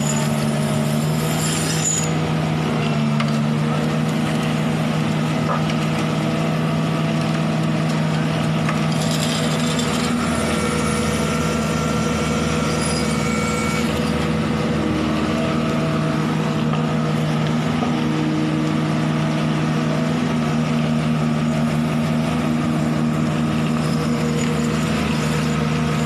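Diesel engine of a self-loading concrete mixer running steadily, a constant low drone.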